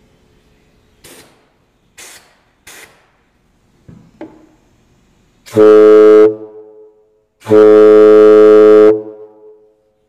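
Homemade plastic air horn blown with compressed air: two very loud blasts at one steady, low pitch, a short one about halfway in and a longer one of about a second and a half soon after. Before them come three short hisses.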